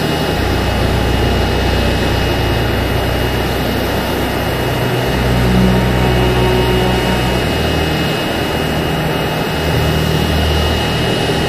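Twin-engine jet airliner's engines running as it comes in to land and touches down on the runway: a steady loud rush with a faint high whine.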